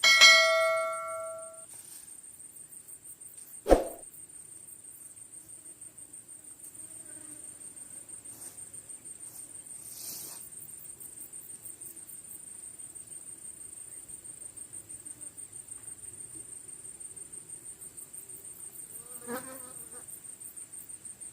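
Insects chirring steadily, a high-pitched buzz pulsing rapidly and evenly throughout. At the very start a loud metallic ringing tone fades out over about a second and a half, and a single sharp knock comes a few seconds in.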